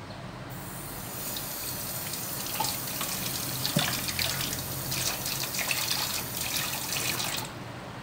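Kitchen tap running into a stainless steel sink, water splashing off hands while a hog intestine is rinsed for sausage casing. It is turned on about half a second in and shut off near the end.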